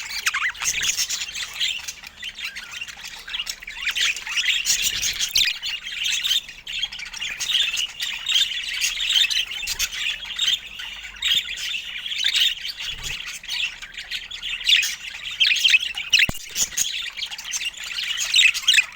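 Pet budgerigars chattering and warbling without pause, a fast jumble of short chirps and squawks.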